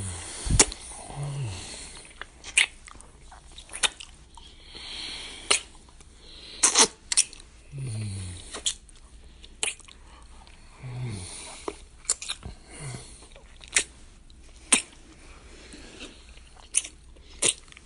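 Close-miked wet kissing: irregular sharp lip smacks and pops, over soft breathing, with a few short low 'mm' hums that fall in pitch.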